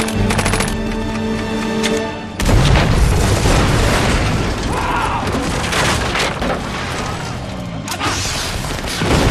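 A bomb blowing up a bridge in a film soundtrack. About two and a half seconds in, a heavy explosion cuts across a held music chord, followed by a long, deep, noisy rumble of blast and debris. A second sharp bang comes near the end.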